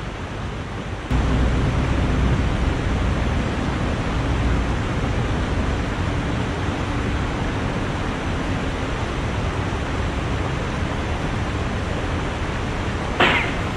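Steady rush of a shallow river running over rocks. A low rumble comes in abruptly about a second in, and a brief sharp noise sounds near the end.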